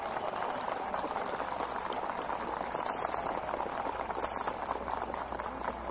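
Large crowd applauding, a dense steady patter of many hands clapping, on a band-limited old recording.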